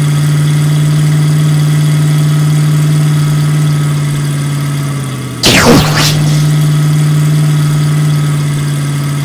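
Monster-truck engine sound effect running steadily with a low hum. About five and a half seconds in there is a loud, brief noisy burst that sweeps down in pitch, then the engine hum carries on.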